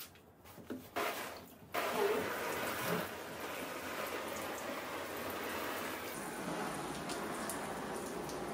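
Kitchen faucet's pull-down sprayer running, water pelting a snowmobile jacket and splashing into a stainless steel sink; the steady spray starts about two seconds in.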